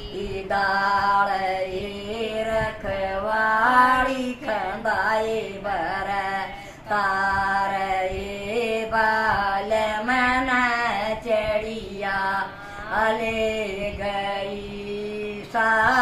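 A woman singing a Haryanvi folk song in a chant-like melody, phrase after phrase with short breaks between, over a steady low hum.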